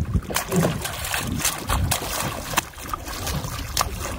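Water splashing and sloshing at the side of a small open fishing boat as a large stingray held at the gunwale flaps in the water, with scattered sharp splashes and knocks.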